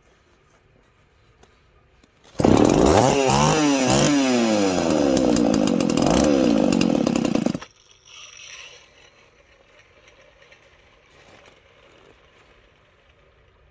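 Poulan 3400 two-stroke chainsaw, freshly ported with a machined base, revved up and down several times and then held at high revs for about five seconds before cutting off suddenly.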